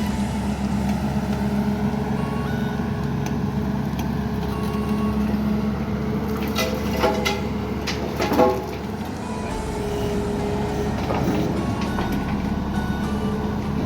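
Hyundai 210 excavator's diesel engine running steadily, with a few sharp metallic clanks a little past the middle, the loudest about eight seconds in.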